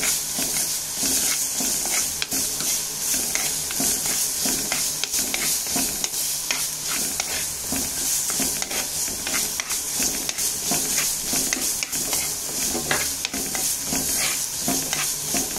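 Crushed coconut masala sizzling in hot coconut oil in an earthenware pot, with a steel spoon stirring and scraping it against the pot many times over.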